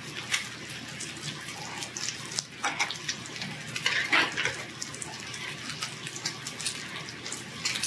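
Pork belly sizzling on a tabletop grill plate, a steady hiss, with a few short clinks and scrapes of utensils against the grill.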